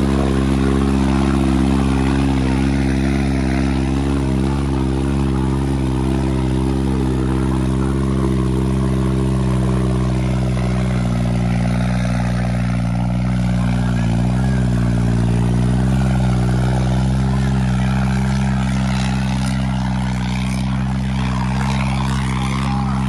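Diesel tractor engine running steadily at full throttle under heavy load while pulling a weighted sled.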